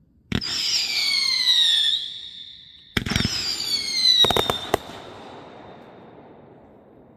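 Consumer fireworks: two whistling shots, each launched with a sharp pop and followed by a shrill whistle that slides slowly down in pitch. The first whistle lasts about a second and a half; the second brings a few sharp cracks near its end, then fades away.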